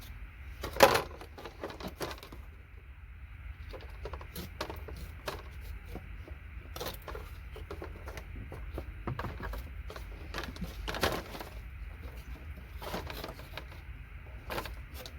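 Sharp clicks and cracks of a circuit board being cut with hand cutters, irregular, the loudest about a second in, over a steady low hum.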